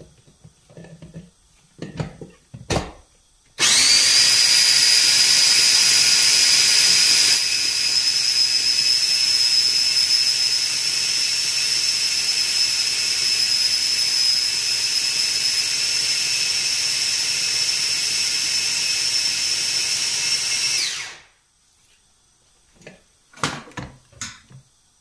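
Electric mini food chopper grinding fresh red chili peppers into a paste. After a few clicks as the motor head is set on the bowl, the motor starts suddenly about three and a half seconds in and runs with a steady high whine for about seventeen seconds, then winds down with falling pitch. A few clicks follow as the motor head is lifted off.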